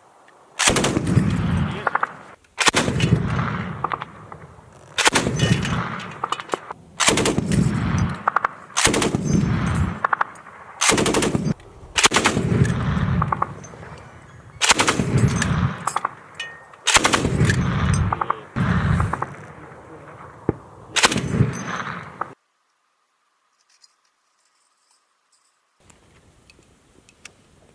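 KPV 14.5×114mm heavy machine gun firing short bursts of several rounds, about ten bursts roughly two seconds apart, each followed by a long rolling echo. The sound cuts off abruptly about three-quarters of the way through, leaving near silence.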